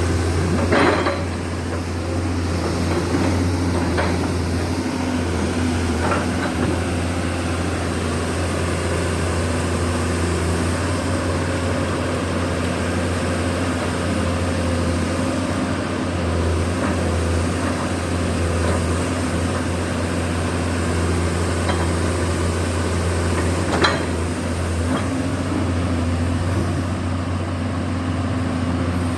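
Komatsu PC200-8M0 excavator's diesel engine running steadily with a deep, even hum, with a few sharp metallic knocks now and then.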